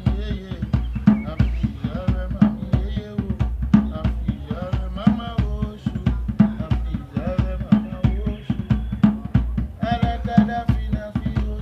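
Orisha music: drums beating a steady, repeating rhythm with a deep stroke about every two thirds of a second, and voices singing a chant over them.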